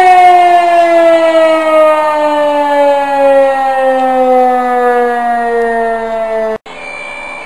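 Electromechanical fire-alarm siren sounding loudly, its pitch sliding slowly and steadily down as it winds down. It cuts off abruptly about six and a half seconds in, and quieter street sound follows.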